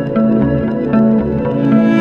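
Background music: plucked and bowed string instruments over a low bass note that repeats about every three-quarters of a second.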